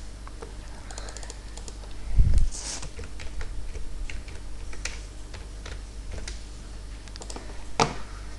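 Typing on a computer keyboard, with scattered key and mouse clicks, a dull thump about two seconds in and a sharper click near the end.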